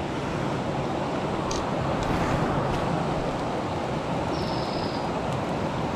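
Fast-flowing river current rushing steadily, a continuous even noise. A short faint high chirp sounds about four and a half seconds in.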